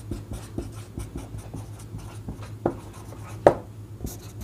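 Handwriting a worked solution: a run of short scratching strokes, with two sharper taps about two and a half and three and a half seconds in, over a low steady hum.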